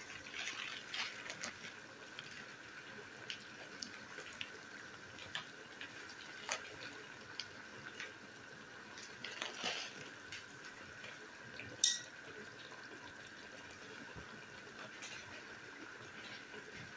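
Vegetables cooking in a pot with a little water, faintly simmering: scattered small pops and crackles over a low hiss, with a brief cluster of crackles just before ten seconds and a sharper click about twelve seconds in.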